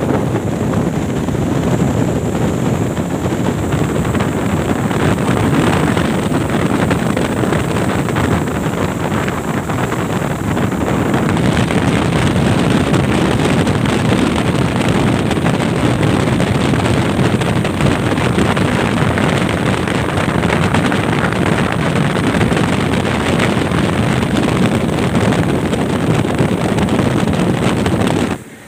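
Speedboat running fast on a river: a loud, steady rush of engine, water spray against the hull and wind on the microphone. It cuts off abruptly near the end.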